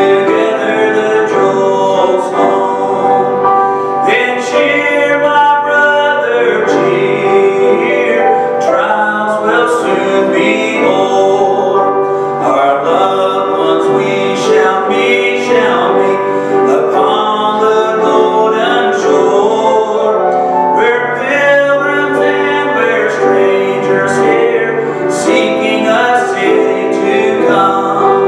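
A man singing a gospel song to grand piano accompaniment.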